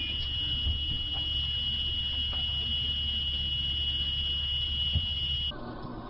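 Steady high-pitched electronic alarm buzzer sounding one unbroken tone over a low steady hum; both cut off suddenly near the end.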